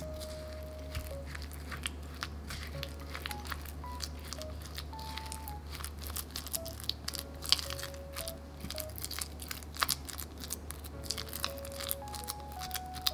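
Silicone spatula pressing and scraping crumbly cookie dough against a ceramic bowl: an irregular run of crackly scrapes and ticks. Soft background music plays a simple melody of single notes underneath.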